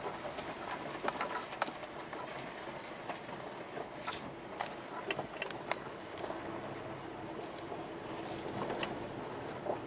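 Vehicle driving slowly over a rough, stony dirt track: a steady rumble with scattered knocks and rattles.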